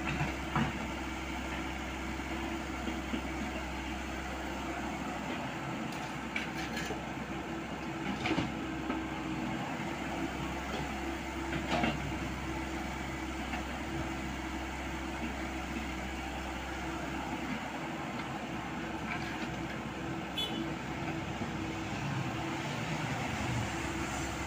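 Komatsu PC78US mini excavator's diesel engine running steadily, a constant hum with a low rumble under it, broken by a few short knocks.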